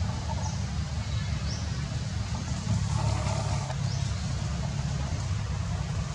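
Steady low outdoor rumble, a little louder about three seconds in, with a few faint short high chirps over it.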